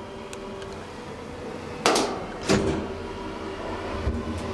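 Hydraulic elevator: two sharp clunks about half a second apart midway through, the door shutting and latching, over a steady hum. Near the end the hum swells as the drive starts up.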